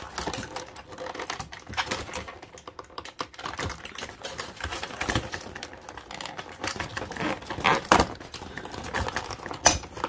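Thin clear plastic blister packaging crackling and clicking as it is flexed and a small part is worked free of it: a rapid, irregular run of small clicks, with a sharper snap near the end.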